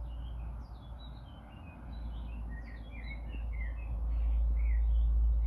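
Small birds chirping, many short high chirps in quick succession throughout. A low rumble rises in level about four seconds in.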